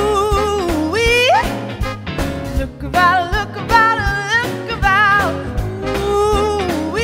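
A sixties pop song with band backing of bass and drums, a female lead vocal holding long, wavering notes with several sweeping upward slides.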